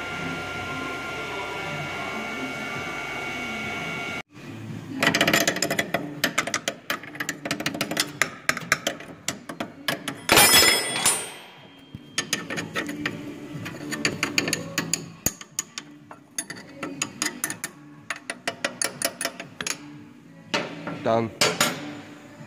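Induction heater whining steadily on a seized track rod end for about four seconds. After a cut, a long run of metallic clicks and knocks from spanner work on the track rods, with a loud hiss about ten seconds in.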